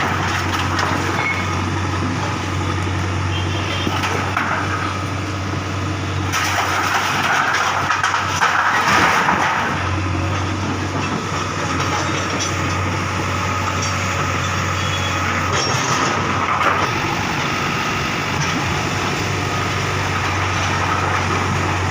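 Bulldozer's diesel engine running steadily, swelling louder about eight to nine seconds in.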